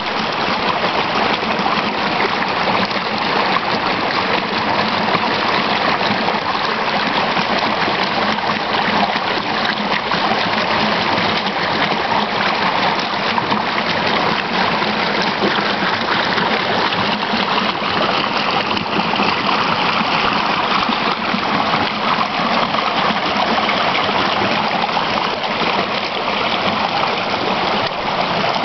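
Shallow mountain creek running over rocks and boulders: a steady rush and trickle of water that holds even throughout.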